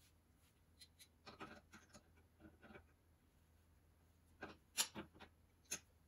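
Faint scattered metal clicks and light scraping as the burner's mounting bolts are screwed in by hand on a gas melting furnace. One cluster comes about a second in and a sharper few near the end.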